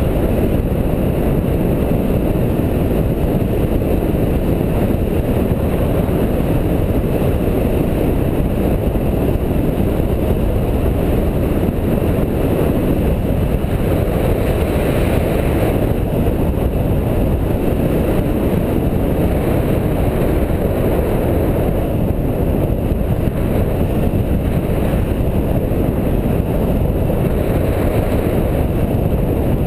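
Airflow buffeting the microphone of a paraglider's harness-mounted camera in steady gliding flight: a loud, even, low rumble of wind noise.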